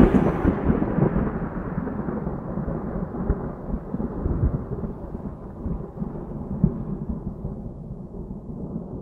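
Thunderstorm: low rolling thunder over rain, fading slowly out as its higher sounds die away, just after the song cuts off.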